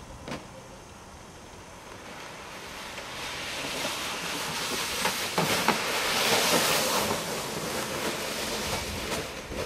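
Toboggan sliding down a snowy slope: a scraping hiss over the snow that builds from about two seconds in, is loudest past the middle, then eases as it slows, with a few knocks along the way.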